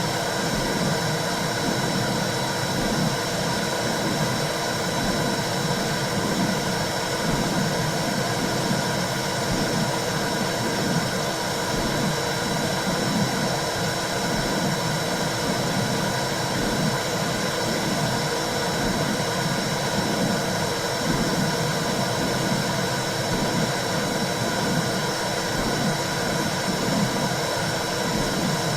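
Womb sound used to soothe newborns: a steady whooshing noise with a low, rhythmic pulse a little faster than once a second, like blood flow and a heartbeat heard from inside the womb.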